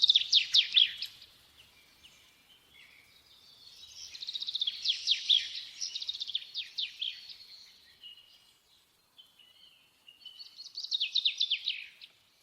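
A songbird singing in three bouts of rapid, quick downward-sliding chirps, with quieter scattered notes between the bouts.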